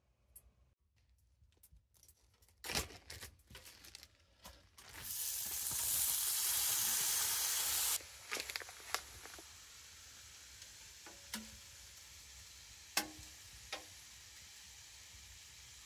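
Food sizzling in a pan, with scattered clicks and knocks and one sharp knock about three seconds in. The sizzle comes in loud about five seconds in, drops suddenly about three seconds later, and goes on as a quieter steady sizzle.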